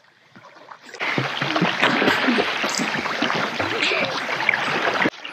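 River water splashing close by as a child swims with pool noodles. The splashing starts suddenly about a second in and cuts off shortly before the end.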